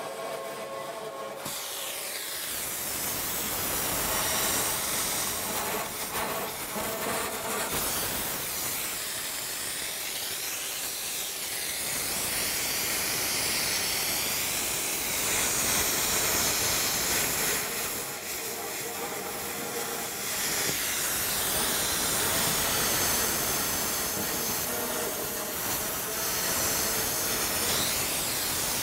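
Multiplaz 3500 water-vapour plasma cutting torch hissing as its jet cuts through thin, rusty steel exhaust pipe. The hiss widens about a second and a half in, then holds steady with small swells and dips.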